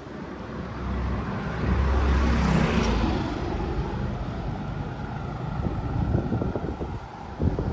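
A motor engine passing close by, swelling to its loudest two to three seconds in and then easing off.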